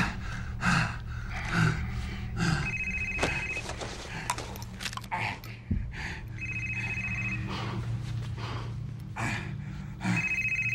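Phone ringing with a trilling electronic ring, three rings about three and a half seconds apart, each about a second long. Short breathy gasps are heard between the rings.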